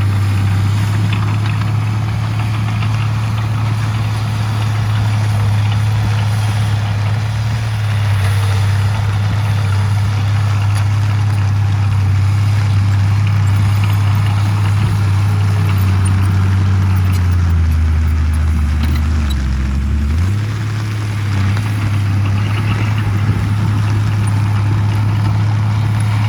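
Heavy diesel engine of earthmoving equipment running steadily. Its pitch sags about eighteen seconds in and picks back up a couple of seconds later, as when the engine is loaded and then eased off.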